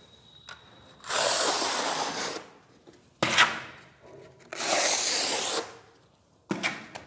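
A small 4–5 mm notched trowel scraping through a layer of epoxy tile adhesive on the back of a marble slab in four long strokes, combing the adhesive into grooves and stripping off the excess.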